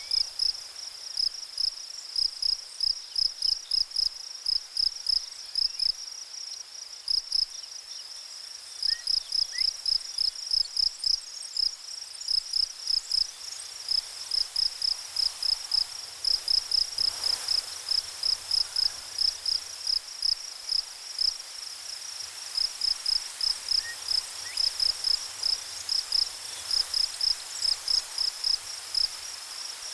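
An insect chirping in a long run of short, high-pitched pulses, about three a second, with a few brief pauses, over a faint steady hiss.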